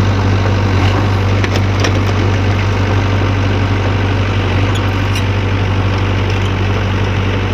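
Sany excavator's diesel engine running steadily with a strong low hum, with a few faint clicks over it.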